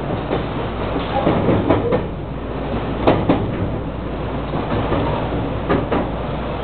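JR West 223 series 2500 subseries electric train running, heard from behind the cab: a steady low rumble, with the wheels clacking in pairs over rail joints and points about every two seconds.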